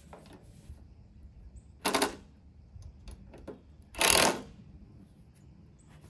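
Two short clattering noises about two seconds apart, the second louder and longer, with a few faint clicks between them.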